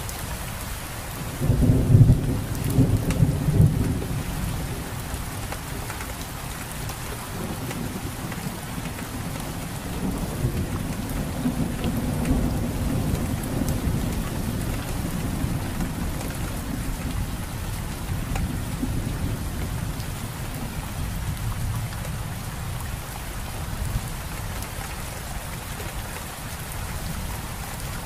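Steady rain falling, with thunder rumbling: the loudest roll comes about two to four seconds in, and a weaker one swells around ten to fourteen seconds in.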